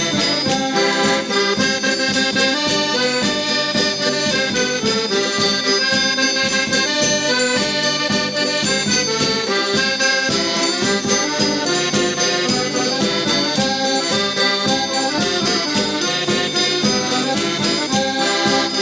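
Instrumental Madeiran folk music: a folk group playing a traditional baile dance tune with a steady beat and no singing.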